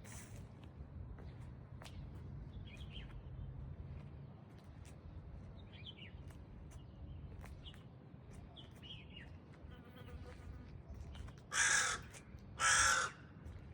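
Two loud, harsh bird calls about a second apart near the end, over faint chirping of small birds and a low background rumble.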